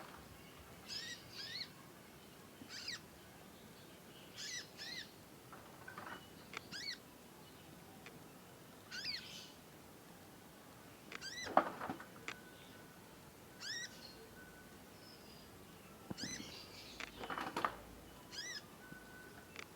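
A juvenile conin songbird, still learning its song, calling in short, sharp rising chirps, often two in quick succession, every second or two. Two louder rustling thumps come about 11 and 17 seconds in.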